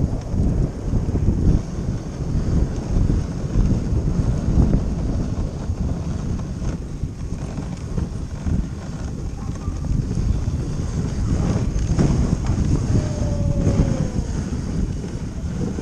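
Wind buffeting the microphone of a moving dog sled, over the steady rush of the sled runners sliding on snow.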